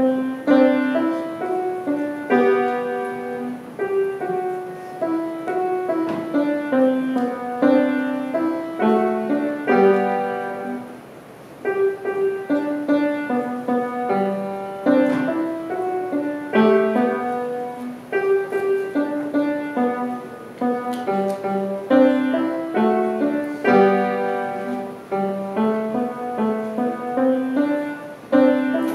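Solo grand piano played: a steady run of short notes and chords in the middle register, with a brief pause about eleven seconds in before the playing resumes.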